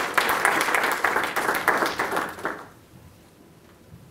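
Audience applauding, the clapping dying away about two and a half seconds in.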